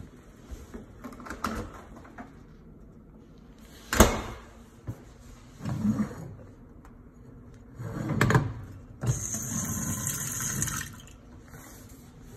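Kitchen faucet turned on, water running into a stainless-steel sink for about two seconds before it is shut off. Before that come a sharp click and a few dull handling knocks.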